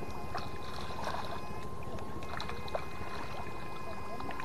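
Electrofishing shocker's steady electronic whine while its probe is in the water, over a low steady rumble. The higher part of the whine cuts out for about half a second near the middle, then comes back.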